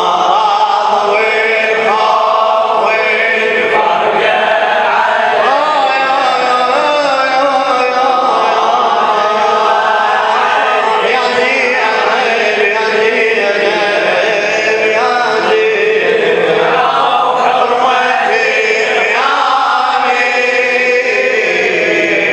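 Male voices chanting in layered, choir-like parts without words, steady through the whole stretch: the vocal backing of a Husseini latmiya, a Shia elegy chant.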